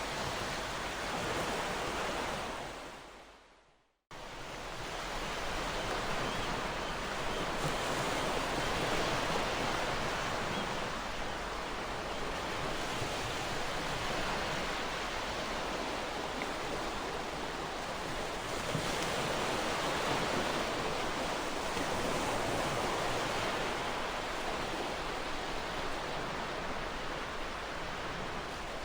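Ocean waves washing onto a shore: a steady surf wash that swells and ebbs slowly. It fades to silence about three seconds in and cuts back in abruptly a moment later.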